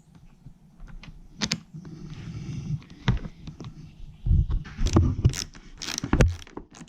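Hand-powered staple gun fired into a dirt bike seat cover: a series of sharp snaps and knocks at irregular intervals, coming more often in the second half, with handling noise between them.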